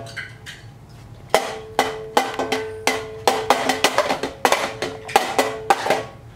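Music: a simple melody of short struck notes that ring and die away, about two to three a second, starting about a second and a half in. A few faint clicks come before it.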